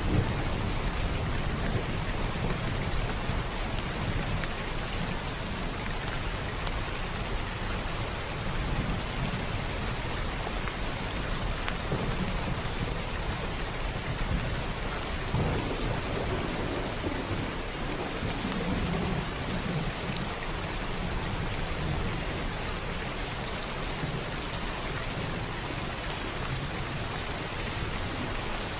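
Heavy rain pattering steadily on a roof, with thunder rumbling low in the background and swelling about halfway through.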